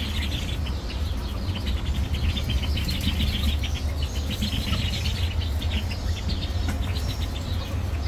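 Many caged birds chirping and calling at once, a busy stream of short high chirps over a steady low rumble.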